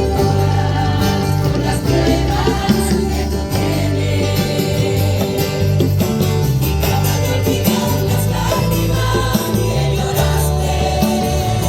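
Church praise music: a choir singing over instrumental accompaniment with a steady bass line.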